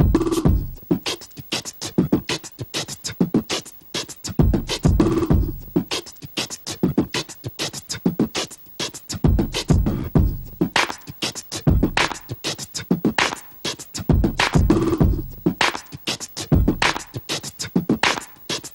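Beatboxing: mouth-made kick, snare and hi-hat sounds in a steady, fast hip hop rhythm. A few short, deeper vocal tones come in among the beats.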